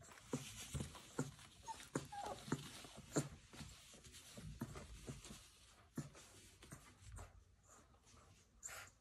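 Boerboel puppies playing: scuffling knocks and clicks with a few short, high whines, busiest in the first few seconds and thinning out after that.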